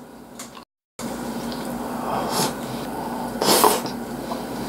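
A man chewing food close to the microphone, with wet mouth noises and a louder burst of mouth noise about three and a half seconds in. The sound cuts out completely for a moment just before one second in.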